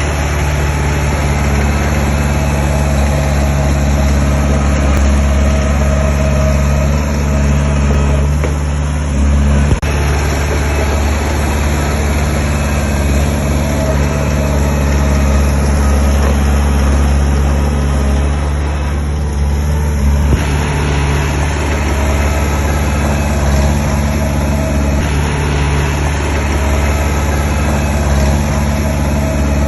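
Heavy construction machine's diesel engine running steadily and loud, with a deep, even drone and a couple of brief knocks, about ten seconds apart.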